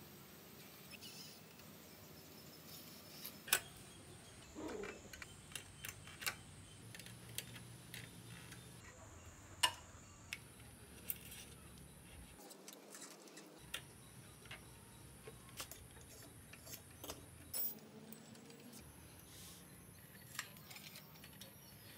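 Scattered light clicks and metallic ticks of hands fitting brake cables and caliper brake parts on a small bicycle, with a few sharper clicks among them.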